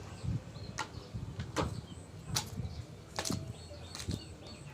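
A series of sharp wooden knocks, roughly one every second, with wind rumbling on the microphone.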